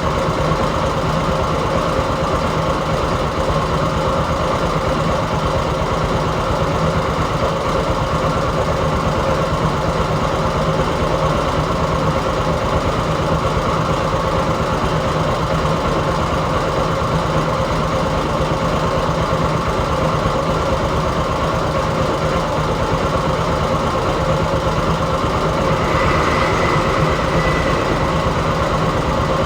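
Heavy machine engine running steadily at a constant pace. Near the end a high whine comes in and the sound grows a little louder.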